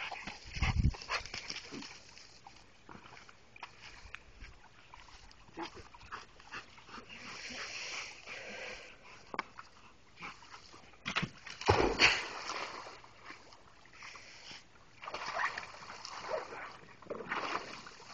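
A dog splashing in an above-ground pool: a big splash about twelve seconds in as it goes into the water, then water sloshing and splashing as it scrambles out over the side near the end.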